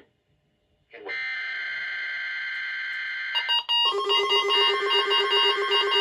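NOAA Weather Radio SAME header data burst, a steady buzzy screech, starts about a second in. From about three seconds in, several weather alert radios go off over it, beeping in rapid, overlapping pulsed tones as they are triggered by a Required Weekly Test.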